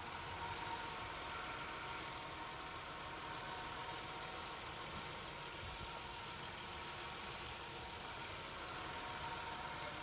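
2017 Nissan Altima's engine idling steadily, with a thin steady high tone running through it. The CVT has just had its oil pan and strainer replaced to cure a whining noise.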